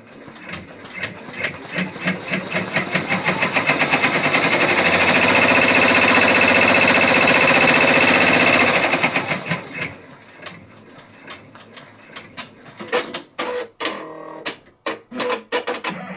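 Brother PR1055X 10-needle embroidery machine sewing a placement stitch: the stitching speeds up over the first few seconds, runs fast and even, then slows and stops about ten seconds in. A run of sharp clicks follows near the end.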